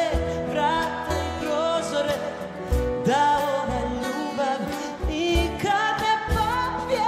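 A female singer sings a pop ballad refrain live, holding wavering sung notes over a full live band with bass and drums.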